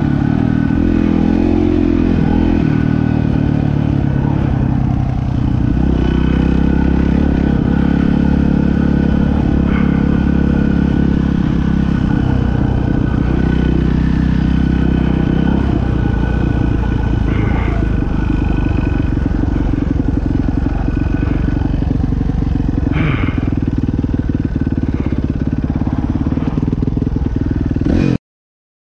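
Dirt bike engine running under way, its pitch rising and falling with the throttle. The sound cuts off abruptly near the end.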